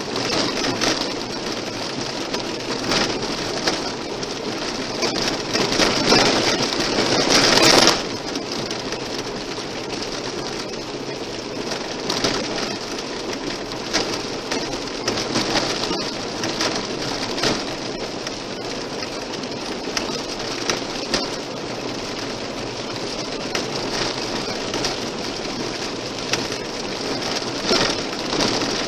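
Car tyres running on a gravel road: a steady rushing noise with frequent small ticks of stones. It is louder for a stretch and drops off suddenly about eight seconds in.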